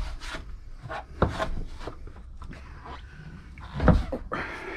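A few hard knocks and handling noises on a plywood cupboard unit, the loudest about four seconds in.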